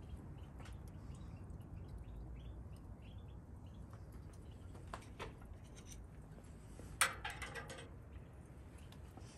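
Faint bird chirps over a low steady outdoor background. About seven seconds in, a sharp metallic clink and a brief rattle as a steel hook knocks against the rim and rebars of the Pit Barrel Cooker.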